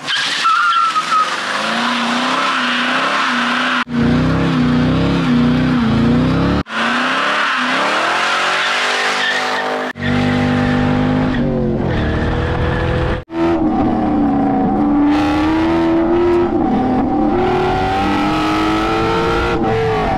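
C5 Corvette's LS1 V8 revving hard in a string of short clips that cut off abruptly several times, with tyres squealing and skidding through a burnout. Later the engine note rises and falls steadily, heard from inside the cabin.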